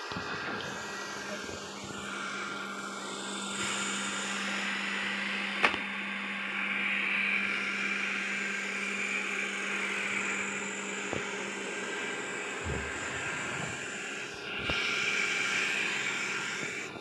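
Robot vacuum mop running: a steady motor hum with a hiss of suction and brushes, one sharp knock about six seconds in and a few softer thumps later on.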